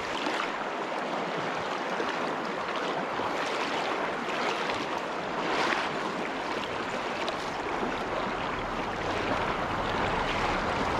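Shallow freestone stream running over a rocky bed: a steady rush of water.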